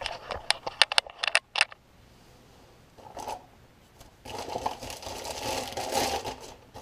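Handling noise from plastic plumbing parts: a quick run of clicks and taps, a brief rustle, then a longer scraping rustle as a P-trap is picked up and handled.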